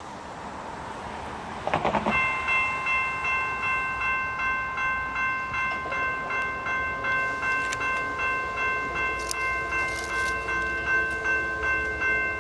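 Locomotive bell on an approaching GE B23-7 ringing steadily at about three strokes a second, starting about two seconds in. A fainter low drone from the locomotives builds toward the end.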